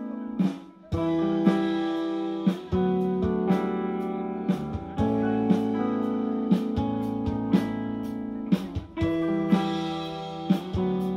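Live rock band playing an instrumental passage on electric guitars, bass guitar and drums over held chords, with a drum hit about once a second. The band drops out briefly about half a second in and comes back in together.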